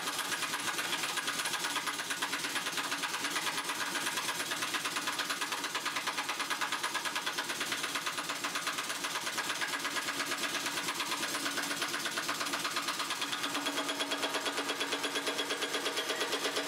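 Large impact wrench hammering steadily and rapidly on a big nut at the end of a hydraulic cylinder rod, running it down tight before a final torque of about 2,000 foot-pounds. The hammering shifts slightly in tone about two-thirds of the way through.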